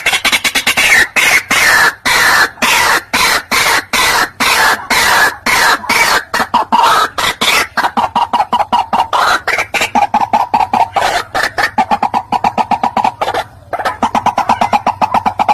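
White-breasted waterhen calling: a long, fast series of harsh repeated notes, several a second, that drop in pitch over the first few seconds and then hold steady, with a short break near the end.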